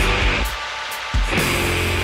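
Heavy rock music with electric guitar and drums.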